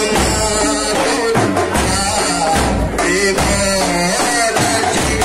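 Group of men singing together over large hand-held frame drums beaten in rhythm.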